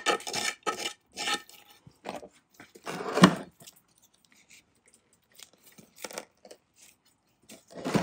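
Gritty bonsai soil and roots crunching and scraping as a pot and root ball are handled, with a louder knock about three seconds in, then only faint scattered clicks.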